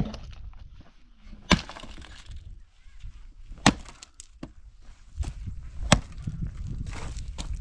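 An axe chopping dry firewood. There are four hard blows about two seconds apart, with a few lighter knocks between them.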